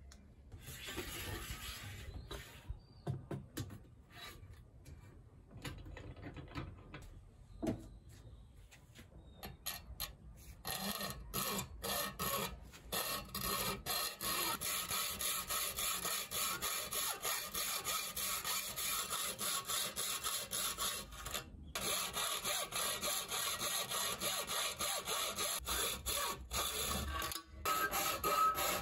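Hand hacksaw cutting through an aluminium extrusion in steady back-and-forth strokes, starting about a third of the way in and pausing briefly twice. Before that there are scattered light scraping and handling sounds.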